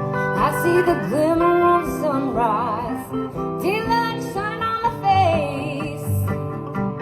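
Live country-style band playing the instrumental intro of a song: guitar accompaniment under a lead melody that slides and wavers in pitch.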